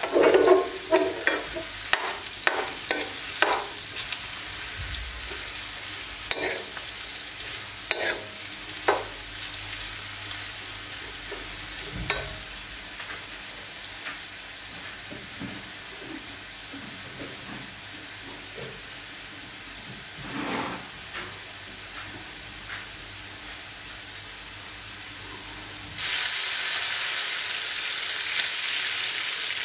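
Potato strips and onions sizzling in oil in a metal wok, with a metal spatula scraping and knocking against the pan in quick strokes during the first several seconds and a few more later. Near the end, water poured into the hot pan sets off a sudden loud hissing sizzle.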